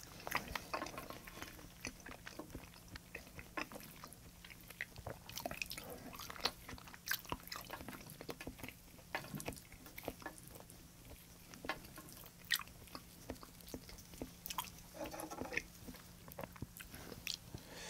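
Close-up mouth sounds of chewing soft raw salmon sashimi: irregular wet clicks and smacks.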